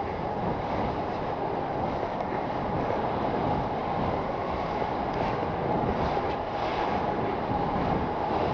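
Skis sliding and scraping over snow on a downhill run: a steady rushing noise, with wind on the microphone.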